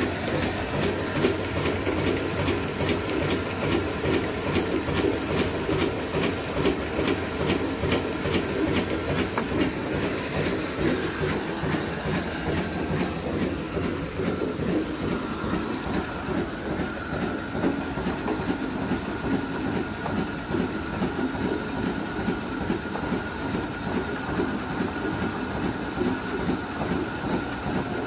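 Old stationary diesel engine running belt-driven mill machinery: a steady mechanical din with a regular clacking beat through the first ten seconds or so. A steady whine comes in around the middle.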